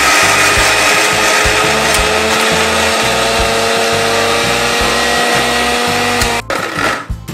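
Electric mixer grinder running, grinding soaked black lentils with almost no water into a thick batter, a steady motor whine over grinding noise. It stops about six and a half seconds in, runs briefly once more and cuts off near the end.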